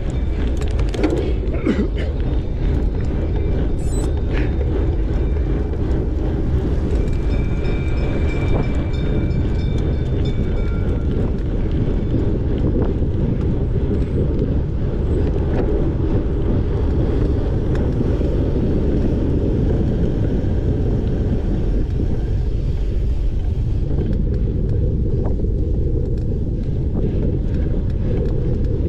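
Wind buffeting the camera microphone over the rumble of a cyclocross bike rolling fast over a dirt course, a steady low roar, with a few sharp clicks and rattles in the first seconds.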